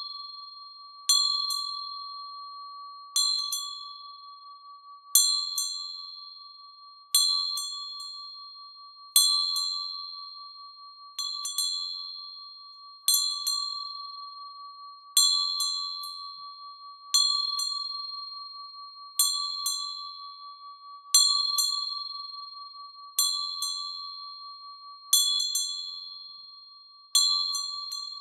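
A chime struck about every two seconds, each strike ringing with a clear high tone that fades away before the next.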